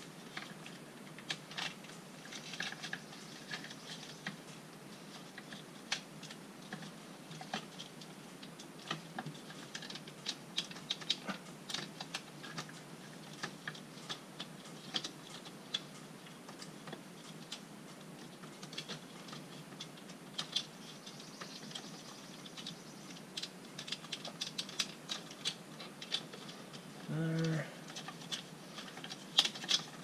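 Plastic interior door-trim pieces of a 1996 C4 Corvette being handled and worked loose by hand, making scattered, irregular light clicks and taps as the switch bezel is pried and slid out of the door panel. A short hum comes near the end.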